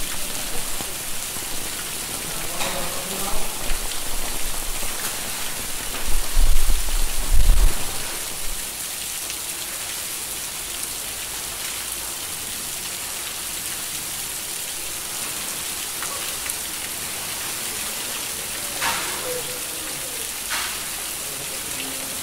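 Steady hiss of falling water, like heavy rain, in a flooded building. A low, loud rumble of thumps about six to eight seconds in, and a couple of sharp clicks near the end.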